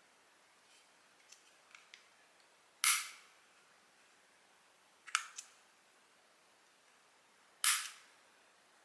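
Sharp clicks and snaps from handling plastic packaging: three loud clicks roughly two to two and a half seconds apart, the middle one doubled, after a few faint small clicks.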